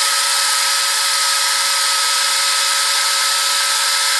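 Ninja Professional personal blender running at full speed, blending a beet smoothie in its cup: a loud steady motor noise with a steady high whine.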